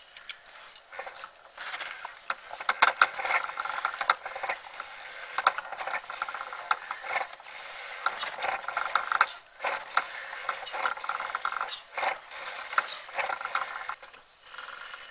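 Homemade coil-winding machine built from sewing-machine gears, running as it winds wire: its gears and wire-feed drive give a dense, irregular clicking and rattling.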